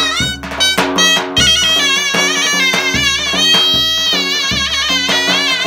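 Zurna, a Turkish double-reed shawm, playing a loud folk melody full of quick turns and trills.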